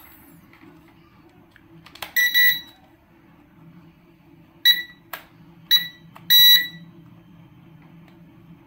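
Electronic beeps from a toy RC helicopter set as its remote is switched on: one long beep, two short beeps and another long beep, all at the same high pitch, with a sharp click among them.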